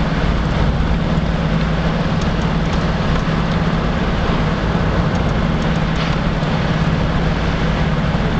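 A car's engine running at a steady drone together with tyre and road noise while driving, heard from inside the cabin.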